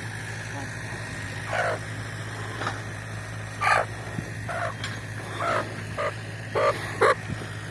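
A chicken being carried clucks and squawks in about eight short calls, over the steady low hum of a backhoe's engine running further off.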